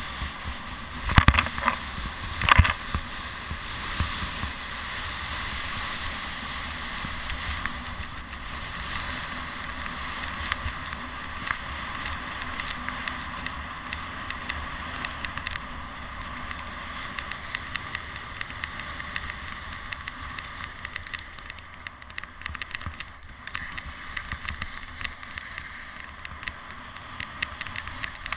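Skis sliding and scraping over packed, groomed snow, a steady hissing rush heard through a body-mounted camera, with a few sharp knocks about a second and two and a half seconds in.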